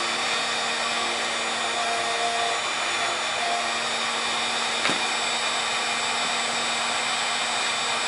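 1500-watt heat gun blowing steadily on a lithium battery cell, with one faint click about five seconds in.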